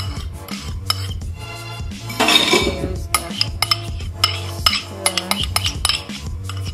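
A metal spoon clinks and scrapes against a ceramic ramekin while scooping out beaten egg, over background music.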